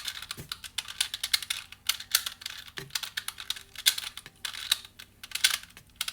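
Plastic 2x2 pocket Rubik's cube being turned quickly, its layers clicking and clacking in fast irregular runs as the same sequence of turns is repeated.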